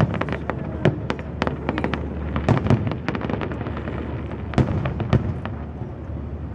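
Fireworks display: a rapid, irregular series of sharp bangs from bursting aerial shells, several of them close together, over a continuous low rumble. The loudest bangs come at the start, about two and a half seconds in, and just before five seconds.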